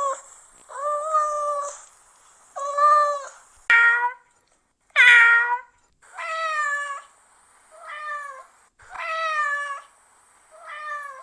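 Domestic cat meowing repeatedly, about eight separate meows roughly a second apart. Two meows near the middle are louder and higher-pitched than the rest.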